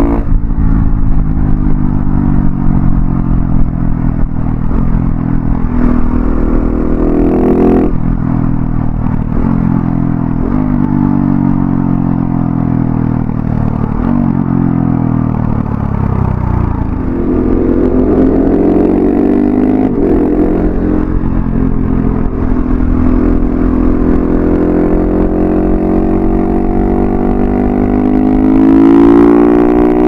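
2019 KTM 690 SMC R's single-cylinder engine breathing through an Arrow Thunder slip-on exhaust with its dB killer fitted, heard while riding. The pitch steps down sharply about eight seconds in, falls as the bike slows around the middle, then rises as it accelerates, holds steady at cruise and climbs again near the end.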